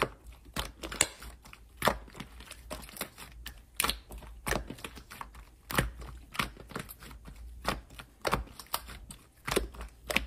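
Translucent gold glitter slime being stretched, folded and squeezed by hand, giving a quick, irregular run of sharp clicks and pops, several a second.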